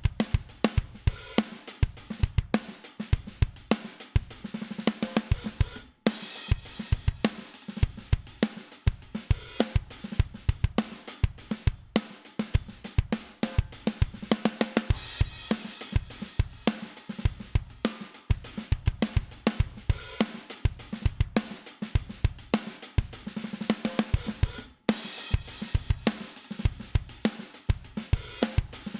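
Recorded acoustic drum kit loop (kick, snare, hi-hats and cymbals) playing a steady groove, run through a dbx 160-style VCA compressor: the dbx 560A hardware, then the UAD dbx 160 plugin partway through. The loop breaks off for an instant twice and starts again.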